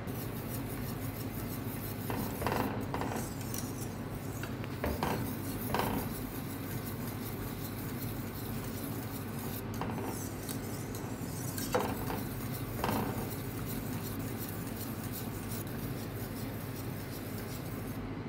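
Wire whisk scraping and clinking against the inside of a stainless steel pot as soup is whisked, with a few sharper knocks scattered through, over a steady low hum.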